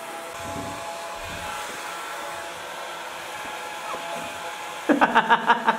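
Handheld hair dryer blowing steadily, drying a wet puppy's coat. Near the end a quick run of about six short, loud vocal sounds cuts in over it.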